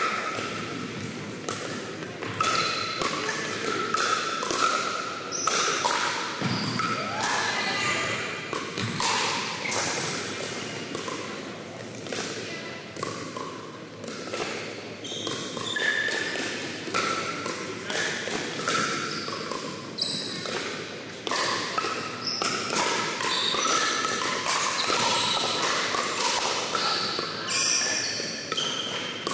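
Pickleball play in a large gym hall: repeated sharp pops of paddles hitting the plastic ball through rallies, over a steady background of voices from around the hall.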